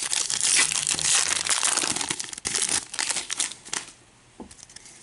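Foil Pokémon TCG booster pack wrapper crinkling rapidly as it is torn open by hand, dying away about four seconds in, with a couple of faint rustles near the end.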